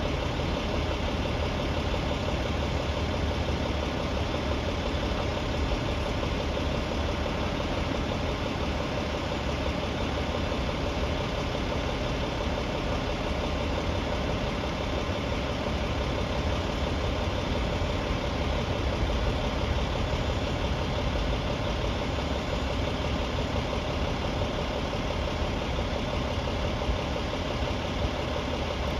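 Heavy truck engine idling steadily, a constant low hum with no change in speed.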